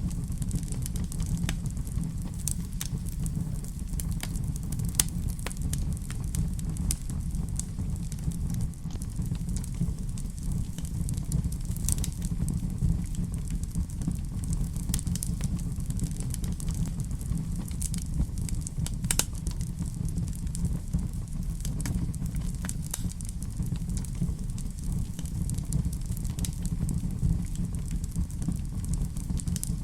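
Fireplace fire crackling, with a steady low rumble and scattered sharp pops.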